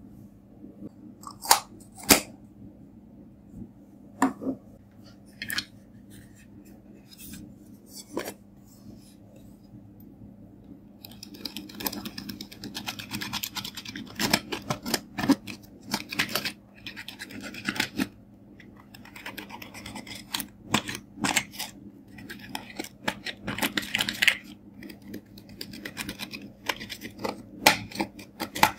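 A few sharp clicks and pops as a lipstick is worked into sticky clear slime. Then, from about 11 seconds in, rapid scratching and crumbling as a thin metal tool scrapes and breaks up pressed-powder eyeshadow in its palette pans.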